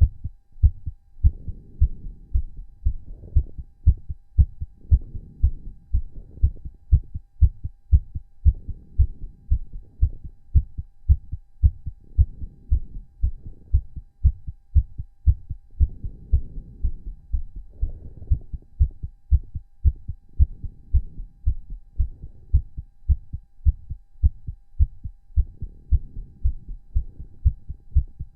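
A man's heart beating fast after exercise: a quick, even run of deep, muffled thuds.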